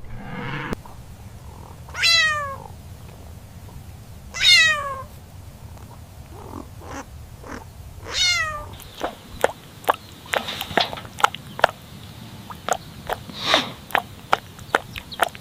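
Cat meowing three times, each call falling in pitch, about two seconds apart. In the second half, a quick run of short clicks and taps.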